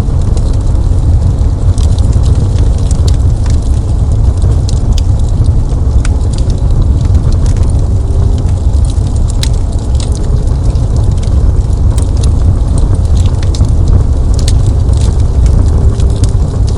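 Fireplace burning: a steady low rumble of flames with scattered sharp crackles and pops from the burning wood.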